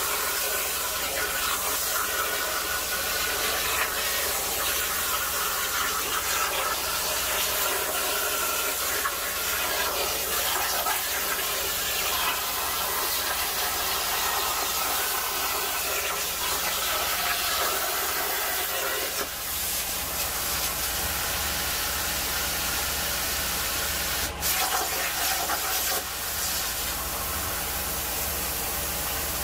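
Jasic Cut 45 air plasma cutter on a CNC table, its torch hissing steadily as it cuts through sheet steel. Near the end a few sharp cracks break the hiss as the arc stops and restarts between cuts.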